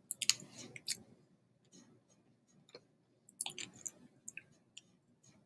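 Kacha Mango Bite hard candy being sucked in the mouth: scattered small clicks of the candy against the teeth and soft wet mouth sounds, busiest in the first second and again a little past the middle.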